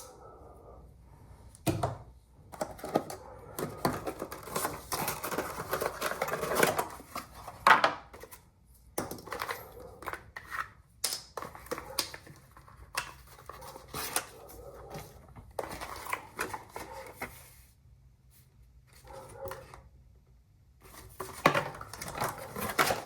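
Hands working with small rifle parts and tools: runs of rapid clicks and rattles mixed with rustling, broken by short pauses, with a quiet lull a few seconds before the end.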